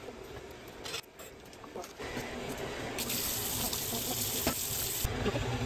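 Water running from a kitchen tap into a stainless steel sink, starting about two seconds in, after a few light knocks.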